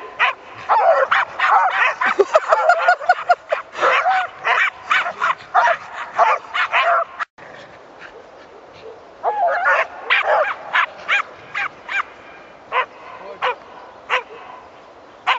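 Dogs barking and yipping in play, with rapid sharp barks packed close together for the first half. After a brief gap a little past the middle, the barks come more scattered.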